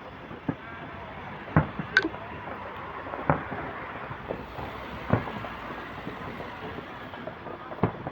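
Fireworks shells bursting overhead: about six sharp bangs at irregular intervals over a steady background rumble.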